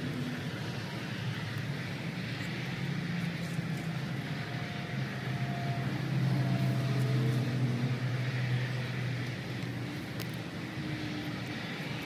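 Steady low vehicle rumble with a continuous hum, a little louder around the middle.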